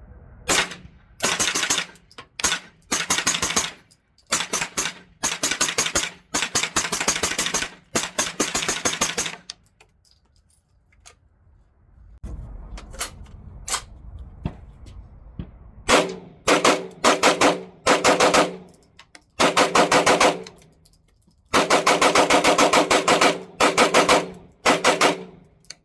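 Rapid strings of gunshots fired in quick runs with short pauses between them, and a lull of a couple of seconds about ten seconds in before the firing resumes.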